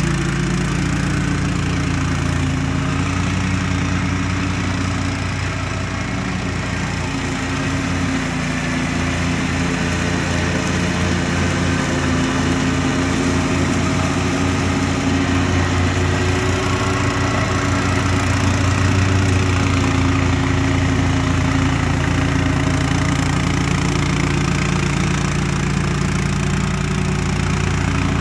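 BCS 770 two-wheel tractor's engine running steadily while it drives a 38-inch front-mounted mower deck, the note rising a little just past the middle.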